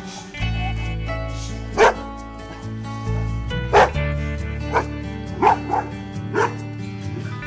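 A leashed dog barking: about six short, loud barks at uneven intervals, two of them in quick succession, over background music.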